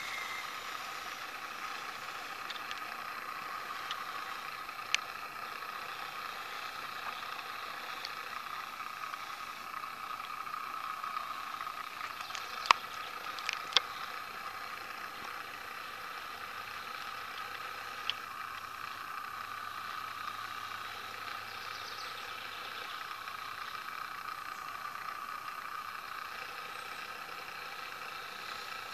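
Electric drive motor and gearbox of a radio-controlled scale Toyota FJ40 whining steadily as it drives over grass. A few sharp clicks cut in, the loudest two about halfway through.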